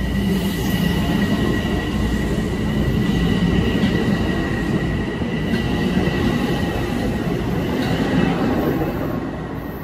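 A Metro-North electric commuter train running past the platform: a steady, loud rumble of wheels on rail with a steady high whine above it. It begins to fade near the end as the last cars go by.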